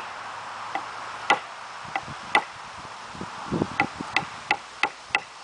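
Ontario Hunt Plus stainless-steel skinner knife carving thin curls off a seasoned oak stick, each stroke giving a sharp click of blade on wood. The strokes are spaced out at first, then come steadily about three a second from about four seconds in.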